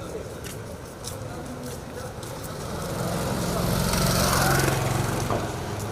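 A motor vehicle driving past in the street: its engine grows louder, is loudest about four seconds in, then fades, over a background of street noise and distant voices.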